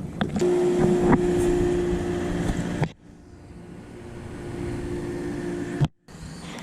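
A boat motor running with a steady pitched hum. It cuts off abruptly about three seconds in, then builds back up gradually, with a brief dropout near the end.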